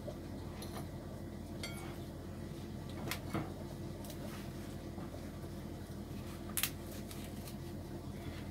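A few light clinks of a metal spoon against a plate and glass while eating, the sharpest about two-thirds of the way in, over a steady low hum.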